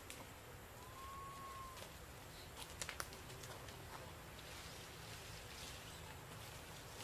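Faint outdoor ambience. About a second in there is a single short whistle-like call, held at one slightly arched pitch for about a second, and a few sharp clicks come about three seconds in.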